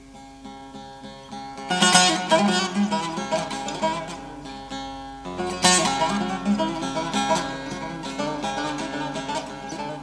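Instrumental passage of a Turkish folk song: a plucked string instrument playing a melody, with loud strummed accents about two seconds in and again a little after five seconds.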